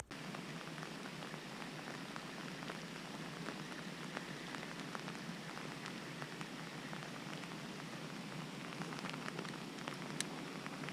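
Heavy rain falling, a steady hiss with many small drop ticks through it.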